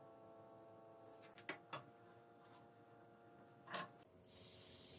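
A few light metal clicks as a thread tap is handled and seated in a bar tap wrench. About four seconds in comes a short steady hiss of aerosol cutting oil sprayed through a red straw onto the drilled steel block.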